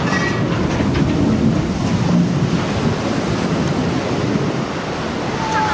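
Water rushing and crashing as a launched ship's hull plunges into the water, throwing up heavy spray: a steady, loud rush of surf. A brief falling tone comes in near the end.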